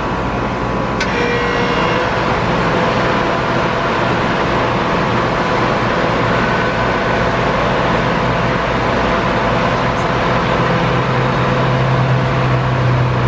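1987 Carrier Round One two-ton central air conditioner running: a steady rush of fan air over a low hum, which grows stronger near the end. A single sharp click about a second in.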